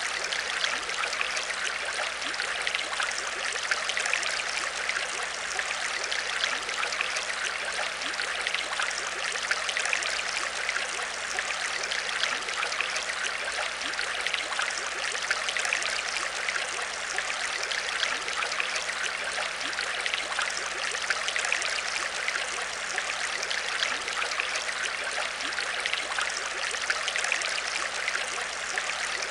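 Aquarium water trickling and splashing steadily, with a fine bubbling crackle and a faint low hum underneath.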